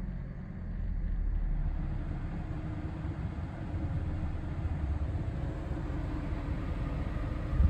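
2009 Toyota iQ's engine idling steadily, heard from inside the cabin.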